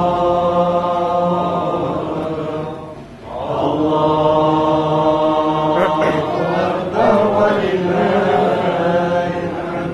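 A congregation chanting together in long, held vocal lines, devotional chant in a mosque, with a short break about three seconds in before the voices come back in.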